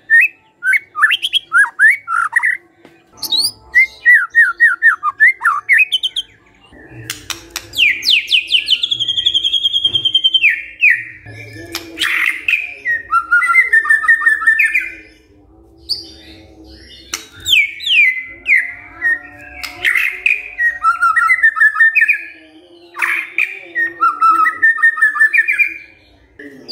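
White-rumped shama (murai batu) in full song: varied phrases of quick rising and falling whistles and chattering notes, with short pauses between phrases and one long held whistle about eight seconds in.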